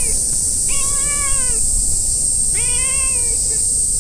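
Calico cat meowing: two drawn-out meows, about a second in and about three seconds in, each under a second long, with the tail of an earlier meow at the very start, over a steady high-pitched hiss.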